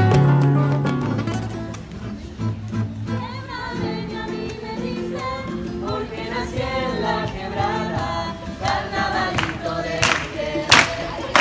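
A guitar piece fades out in the first two seconds, then a small group of young voices sings together, live and open-air. Near the end the audience starts to cheer, with a few sharp loud shouts.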